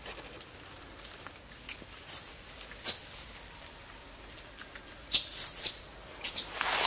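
Short, high-pitched animal squeaks: a couple spaced apart, then several in quick succession in the last two seconds.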